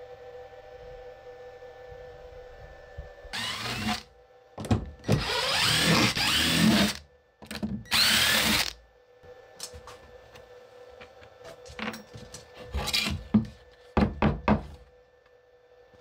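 Ryobi cordless impact driver running in three short bursts on the screws that hold a pine board down, the middle burst the longest, its pitch rising and falling. A few sharp knocks follow near the end.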